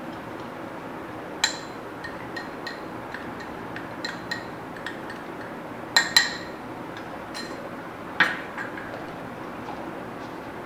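A spoon and a small bowl clinking against the rim of a glass mixing bowl as powdered sugar is scraped and tapped out. A few sharp clinks ring briefly, with lighter ticks between them. The loudest pair comes about six seconds in and another strong one about eight seconds in.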